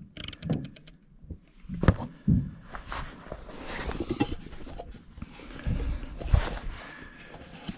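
A quick run of clicks from a riflescope's elevation turret being dialed, then a couple of loud knocks and irregular rubbing and bumping as the rifle and the camera beside it are handled.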